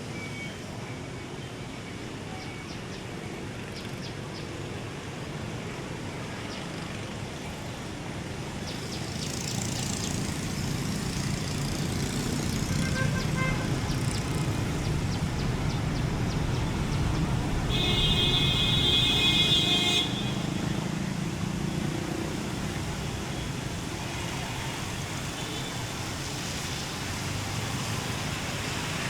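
Street traffic: a motor vehicle's noise swells as it passes, then eases off. A horn sounds for about two seconds near its loudest point.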